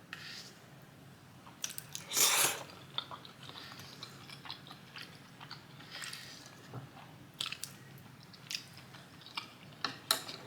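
Close-miked eating sounds: chewing and wet mouth smacks on noodles and dumplings, with a longer noisy burst about two seconds in.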